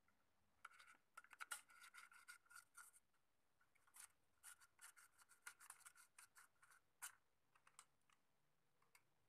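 Faint scratching and rapid clicking as hands handle a homemade drink-can Stirling engine, aluminium can and wire parts rubbing and knocking together. The clicks come in dense clusters for several seconds, then thin out to a few scattered clicks near the end.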